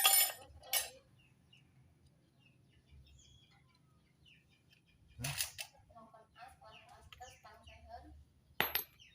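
Sharp metallic clanks of hand tools and engine parts being handled during motorcycle engine disassembly: two near the start, one about five seconds in, and a quick double clank near the end.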